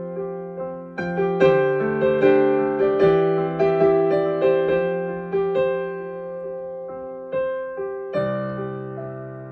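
Slow, soft solo piano improvisation: a melody of single notes over held chords, with a new chord struck near the end that is left to ring and fade.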